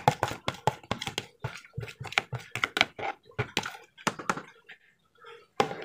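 Metal spoon scraping and tapping against a plastic bowl in quick repeated strokes, scooping out a thick batter. The strokes thin out about four seconds in, and one louder knock comes near the end.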